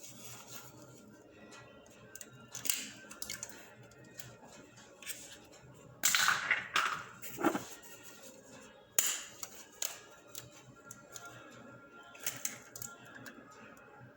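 Eggs being cracked against the rim of a mixing bowl: several sharp knocks and taps spaced a few seconds apart, the loudest cluster about six seconds in.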